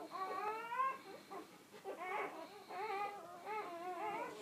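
A litter of newborn puppies squealing and whining as they nurse, several high, wavering cries overlapping, with a short lull a little after a second in.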